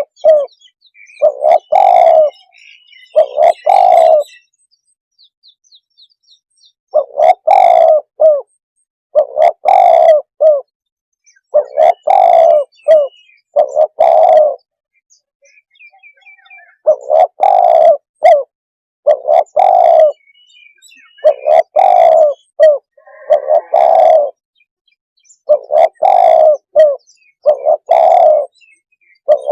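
Spotted dove cooing as a decoy call: loud, repeated coos in runs of three or four, with pauses of a couple of seconds between runs. Faint chirps of small birds sound between the coos.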